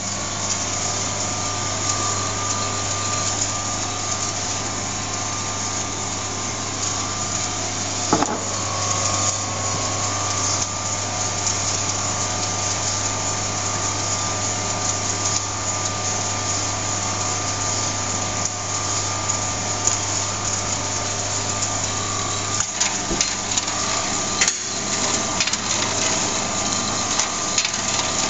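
EB60 drum coffee roaster running, its motor and fan giving a steady hum with a few constant tones and a rushing noise over it. Scattered small cracks of the beans in second crack come more often in the last few seconds, as the roast nears its end.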